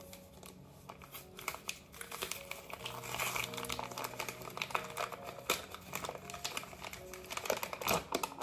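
Paper flour bag crinkling and rustling as it is handled and its folded top is pulled open, a dense run of crackles that grows busier about three seconds in.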